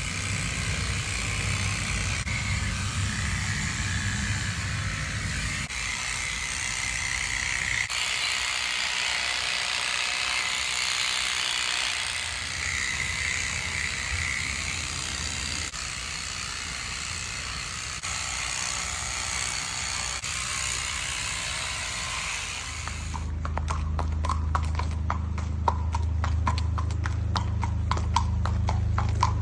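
A steady hiss for most of the stretch, then a shod horse, an Irish Draught x Thoroughbred mare, walking on concrete, her hooves clip-clopping in a quick run of sharp knocks over a low hum.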